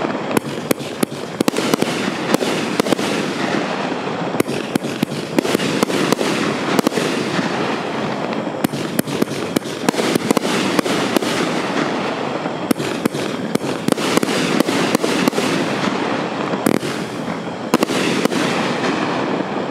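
Miracle Fireworks M5085 Gender Reveal Party, a 35-shot 500 g consumer fireworks cake, firing in rapid succession. A continuous dense crackle is punctuated by many sharp cracks and pops from the shots and their bursts.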